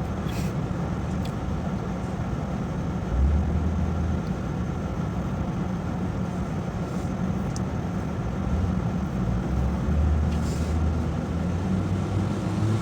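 Steady low rumble of road traffic, swelling briefly about three seconds in and again near the end.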